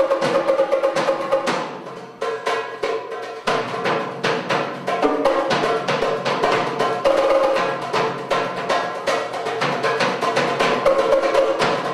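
Drums struck quickly with sticks, then, from about three and a half seconds in, a metal darbuka (goblet drum) played with the hands in a fast run of sharp strokes.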